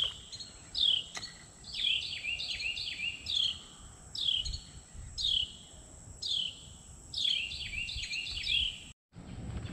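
A songbird singing clear down-slurred whistles, roughly one a second, some run together in quick series of several notes, over a faint steady high-pitched tone. The sound cuts out abruptly near the end.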